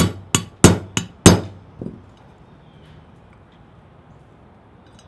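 A hammer strikes a roll pin punch five times in quick succession, driving the rear trigger guard roll pin out of an AR-15 lower receiver. The taps are sharp and metallic, with a lighter tap just under two seconds in.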